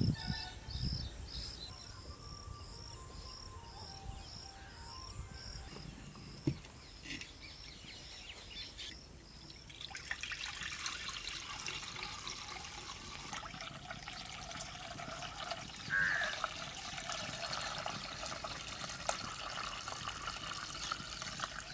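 Thick horse gram broth poured in a steady trickling stream from a steel pot into a clay pot, starting about halfway through. Crickets chirp at about two chirps a second in the first half.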